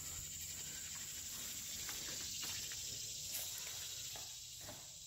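Steady, high insect chirring from crickets, heard faintly, with a few soft taps.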